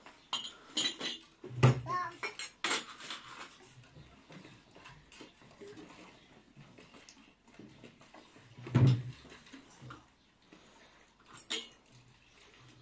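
Metal teaware being handled: clinks and knocks of a tea tray, teapot, sugar bowl and kettle, most of them in the first few seconds, with a louder knock past the middle. A small child's brief vocal sounds are mixed in.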